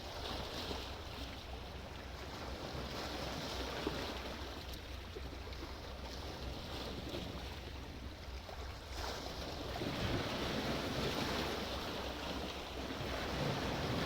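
Sea waves washing in, the surf swelling louder twice, about two-thirds of the way in and near the end, over a steady low rumble of wind on the microphone.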